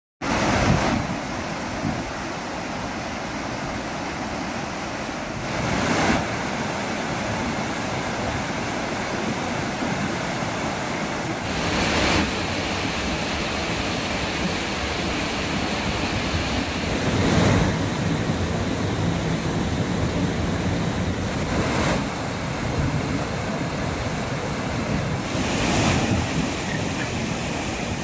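Waterfall and rapids on the Titovka River: white water rushing steadily over rocks, swelling briefly every five or six seconds.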